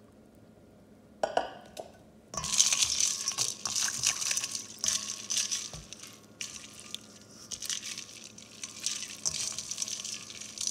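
Water sloshing, with ice clinking, as a hand stirs and swishes blanched sweet potato sticks around in an ice-water bath. A short sound about a second in, then irregular swishes from about two seconds in.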